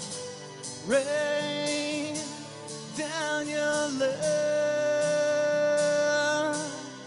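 Live worship music: an acoustic guitar strummed in a steady rhythm under a wordless sung melody that slides up into its notes, ending on one long held note that fades near the end.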